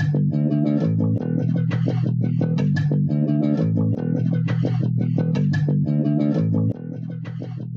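Instrumental music score with a repeating bass line and plucked guitar; it is turned down a little near the end.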